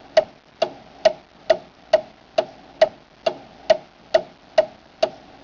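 Clock ticking, a sharp, evenly spaced tick a little over twice a second, over a faint hiss.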